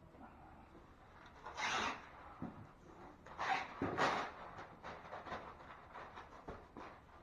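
Masking paper and tape being handled: rustling and rubbing, with three louder rasping pulls or tears between about one and a half and four seconds in.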